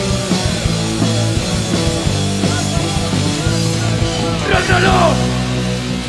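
Metal band playing live: distorted electric guitars holding chords over a pounding drum kit, with a wavering high line rising over the band about four and a half seconds in.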